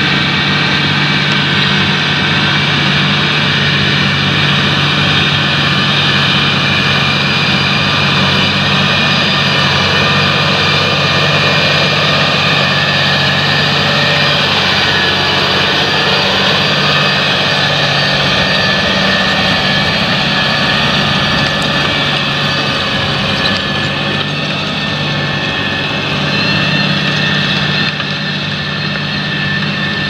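John Deere 8360RT tracked tractor's six-cylinder diesel running steadily under heavy load as it pulls an eight-furrow plough through heavy soil, with a continuous mechanical whine and hiss from the tracks and drivetrain.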